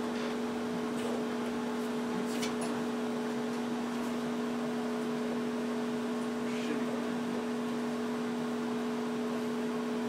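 Microwave oven running with a steady two-note hum, with a few faint crackles from the rotary telephone burning inside it.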